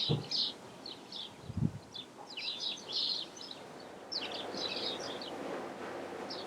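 Small birds chirping and singing, a busy run of short, high chirps. A soft low thump about one and a half seconds in, and a faint steady background noise from about four seconds in.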